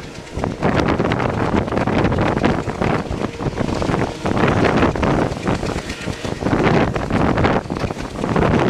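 Wind rushing and buffeting against the microphone at the open window of a moving passenger train, over the rumble and clatter of the coaches running on the track. The noise swells and dips every second or so without letting up.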